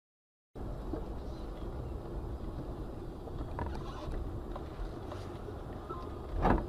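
Steady low road and engine rumble of a vehicle on the move, picked up by a dash cam, starting about half a second in, with a few faint clicks and a short loud thump near the end.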